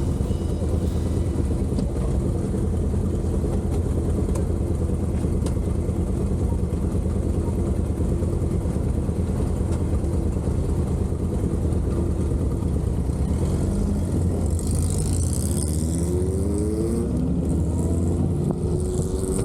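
Engine and road noise of a moving vehicle, running steadily, with the engine pitch rising a few times in the last few seconds as it accelerates.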